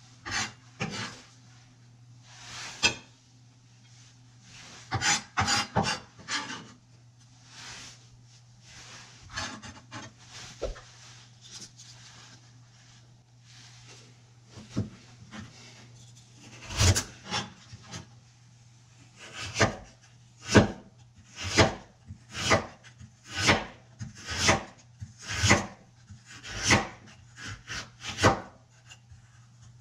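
Kitchen knife slicing vegetables on a cutting board: a few scattered cuts at first, then from about halfway a steady run of strokes, roughly one a second.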